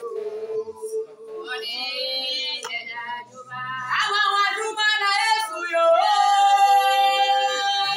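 A high voice singing a slow worship song, drawing out long held notes, loudest over the last two seconds.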